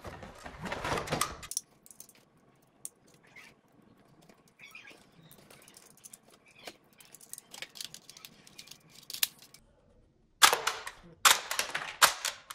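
Plastic toy pistol being handled: a burst of rustling and rattling at first, then scattered small plastic clicks, then a run of loud plastic clacks and scrapes about ten seconds in as the slide is worked.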